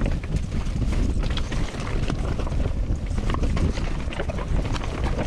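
Mountain bike clattering down a loose rocky trail: tyres crunching over stones and the bike rattling in quick, irregular knocks, under a steady rumble of wind on the microphone.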